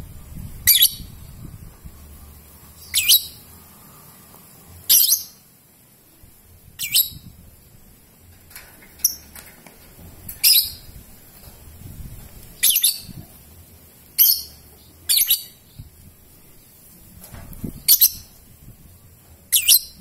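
Young Fischer's lovebird giving short, shrill single calls, about one every two seconds, some of them doubled.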